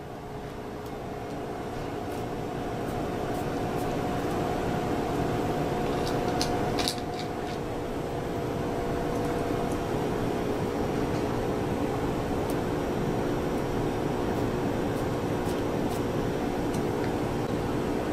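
A steady machine hum, like equipment cooling fans or air handling, with several steady tones in it; one of the tones stops about seven and a half seconds in. A few faint clicks come around six to seven seconds in.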